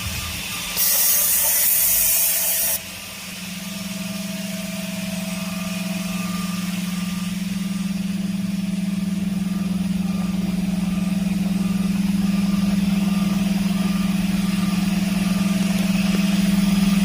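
Woodworking CNC machine: a loud hiss like compressed air is released for about two seconds and cuts off sharply, then a steady machine hum starts and slowly grows louder.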